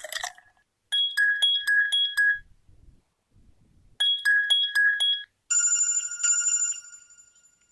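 UMX mobile phone ringtone playing through the phone's speaker: two rings of rapid warbling electronic beeps about three seconds apart, followed by a held electronic chime that fades out.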